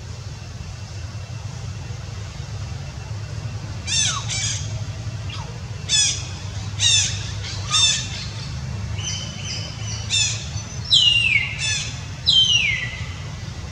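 Baby macaque squealing: about ten short, high cries that slide down in pitch, starting around four seconds in, with the last few longer and loudest. A steady low hum runs underneath.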